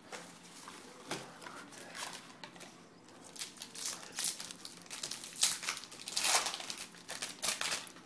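Trading-card pack wrapper crinkling as it is handled, in irregular bursts that grow louder in the second half.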